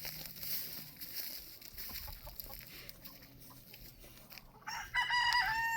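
Rooster crowing once near the end: a loud, held call that wavers and drops in pitch as it ends.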